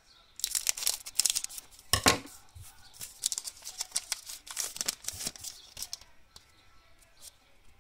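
Foil trading-card pack wrapper crinkling and tearing as it is opened and the cards are pulled out. The loudest crackle comes about two seconds in, and the sound dies down after about six seconds.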